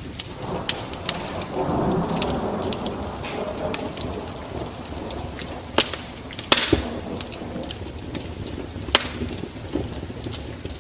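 Wood fire in a fireplace crackling, with many sharp pops and a soft rush of flame that is strongest in the first few seconds; one louder crack comes about six and a half seconds in.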